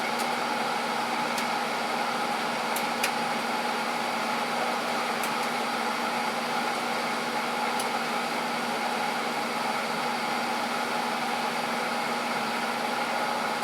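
Old transformer-type battery charger humming steadily with a mains buzz while it drives the current for electrolysis rust removal, with a few faint ticks.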